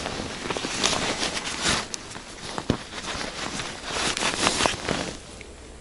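Crunching and rustling of packed snow and winter clothing as a person shifts and handles tackle at an ice-fishing hole, with a few sharp clicks. It dies down near the end.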